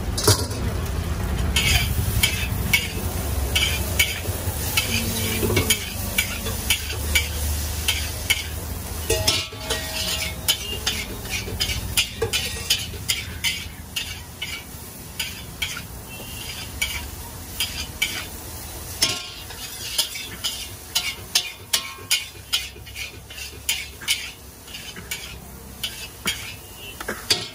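Noodles being stir-fried in a steel wok: a long-handled metal spatula scrapes and clanks against the pan again and again, over a steady sizzle of frying. The clanks grow quicker and sharper in the second half.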